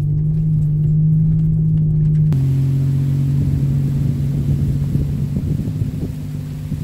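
SUV engine running steadily while driving a dirt trail, a low drone heard from inside the cab. A little over two seconds in the sound cuts abruptly to a different steady hum with more hiss.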